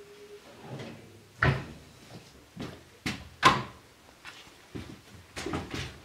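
A string of separate sharp knocks and bangs, like doors shutting and heavy wooden furniture being bumped. There is one hit about a second and a half in, two close together a little past the middle (the second is the loudest), and a cluster of smaller knocks near the end.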